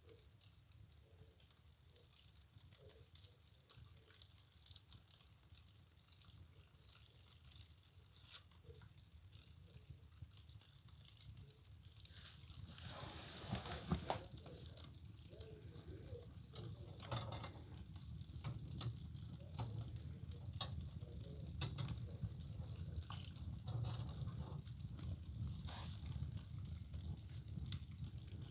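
A freshly lit fireplace fire crackling and popping, faint at first, then growing louder and denser about halfway through as it takes hold, with a steady low rush of flames underneath.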